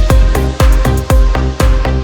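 Electronic dance music with a steady, heavy bass beat.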